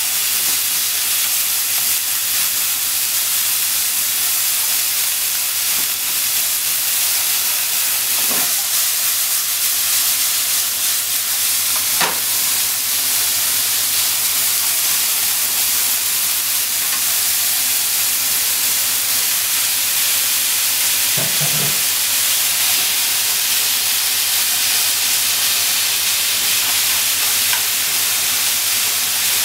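Minced meat sizzling steadily in a nonstick frying pan as it is stirred and broken up with a wooden utensil, with a few short clicks of the utensil against the pan.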